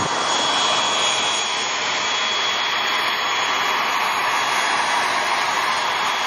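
Steady aircraft engine noise: an even rushing hiss with a thin, high whine held at a constant pitch.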